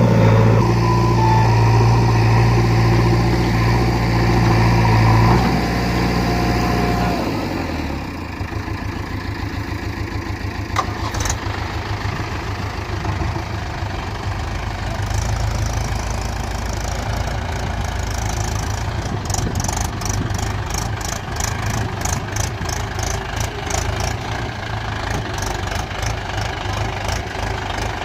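Diesel engine of a tractor or backhoe loader running steadily at raised revs, then dropping to a lumpy idle about seven seconds in. A regular high ticking joins for a few seconds near the end.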